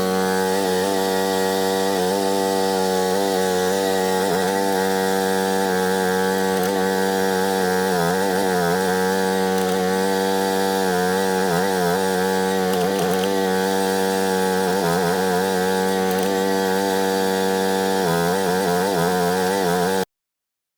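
Engine running steadily at a high, constant speed, with a slight wavering under load; it cuts off abruptly near the end.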